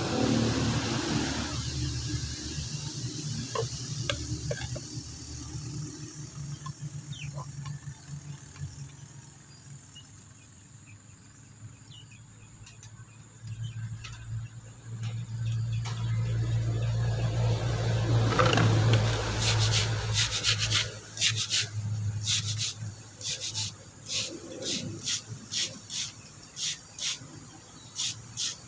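Stiff plastic scrub brush scrubbing a wet rough stone in short back-and-forth strokes, about two a second, through the last third. Before that a low steady hum swells and fades.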